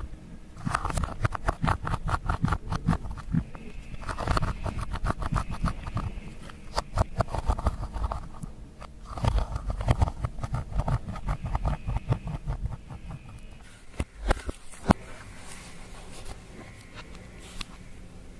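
Clear slime being mixed and squished by hand, with rapid sticky clicking and popping in repeated bursts. The clicking thins to a few isolated pops in the last few seconds.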